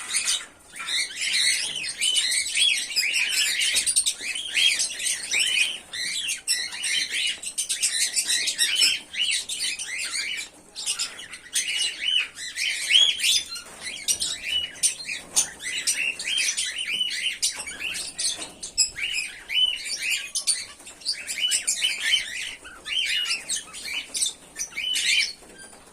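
Pearl cockatiels chirping: a dense, unbroken run of short repeated calls.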